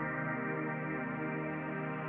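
Background music: a calm track of held, sustained chords with no percussion.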